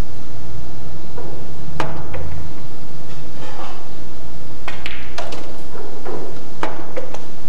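Pool balls clicking: several sharp knocks as the cue strikes the cue ball and the balls hit each other and the cushions during a shot.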